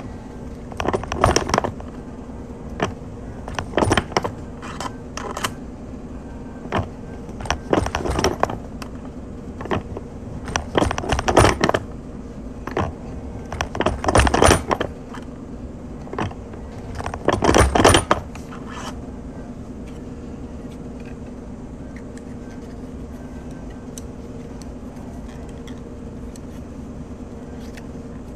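Metallic clinking and rattling as a silver coin ring and steel tools are handled on a cast iron ring-reduction die, in short clusters about every three seconds. After about eighteen seconds the clinking stops and only a steady low hum is left.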